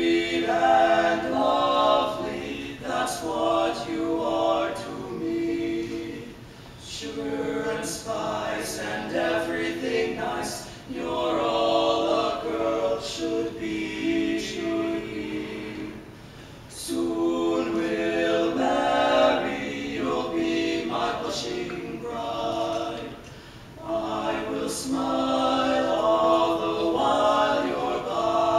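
A male barbershop quartet singing a cappella in four-part close harmony: lead, tenor, baritone and bass hold ringing chords through phrases, with short breaks between them.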